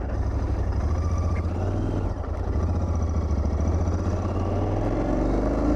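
Royal Enfield Continental GT 650's 648 cc parallel-twin engine running steadily while riding, with its note rising over the last couple of seconds.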